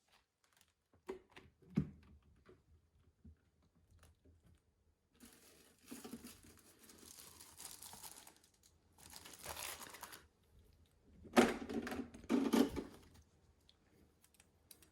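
Packaging being torn open and crinkled, in three spells of tearing, the last the loudest, after a few light handling knocks.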